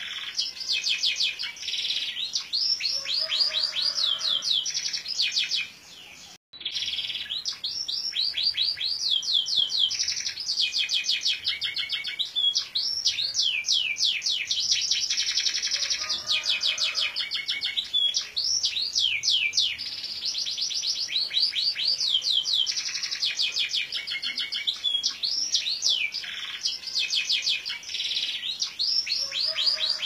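A caged songbird singing a long, continuous song of fast, repeated high trilled notes, with one short break about six seconds in.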